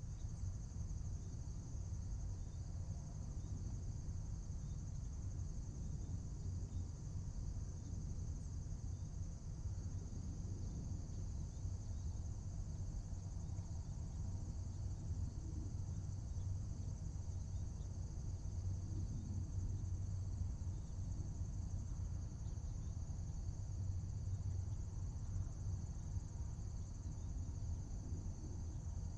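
Steady night-time-style chorus of insects, a continuous high-pitched chirring that holds unchanged throughout, over a low steady rumble.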